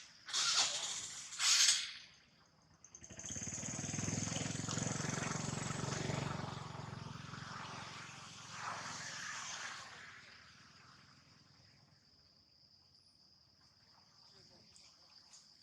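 An engine running, coming up about three seconds in, holding steady, then fading away by about ten seconds, as if passing by. Two short loud noises come in the first two seconds.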